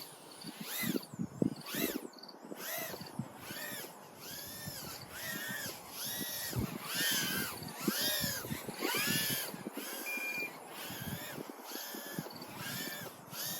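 Tiny whoop's 1S brushless motors whining, the pitch swinging up and falling back about twice a second as the throttle is punched and eased.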